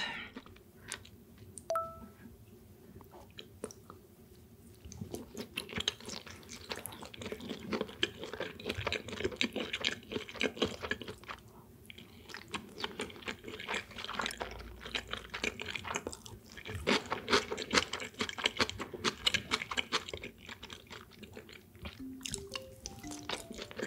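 Close-miked chewing of sushi: many small wet clicks and crunches of a mouth eating, sparse at first and dense from about five seconds in. A single short ringing tap about two seconds in.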